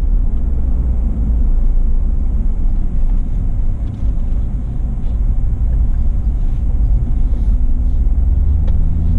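Car driving slowly: a steady low rumble of engine and road noise picked up by a camera mounted on the car, with a steadier engine hum coming up near the end.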